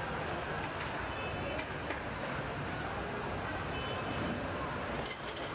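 Scooter assembly-line factory noise: a steady machinery hum with scattered metallic clinks, and a brief flurry of clinks about five seconds in.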